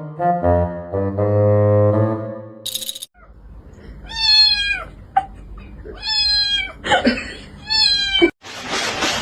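Instrumental music for about three seconds, then a cat meowing three times, each meow about a second long with a falling end. A steady rushing noise comes in near the end.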